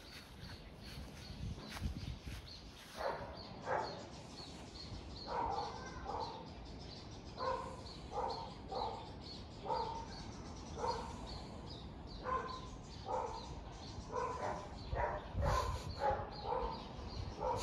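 A dog barking repeatedly in short irregular runs, starting about three seconds in, over a faint steady high ticking about three times a second.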